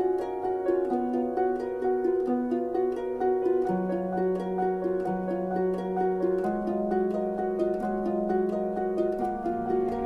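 Background music: a fast, even stream of plucked notes over held low notes that change pitch a few times.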